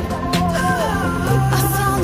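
Background music: held bass notes under a melody that glides from note to note.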